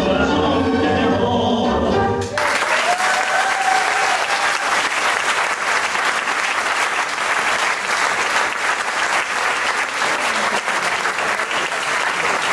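Sung tango vals music stops abruptly about two seconds in, and steady applause from the crowd takes over.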